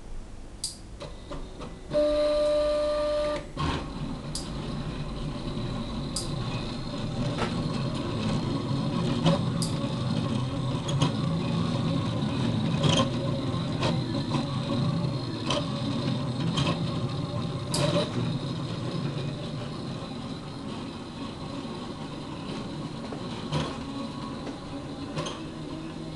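Delta food printer running: its stepper motors and peristaltic pump whir steadily as the effector traces a shape, with a sharp click every second or so. About two seconds in, the motors give a loud steady whine on one pitch for about a second and a half before the printing hum takes over.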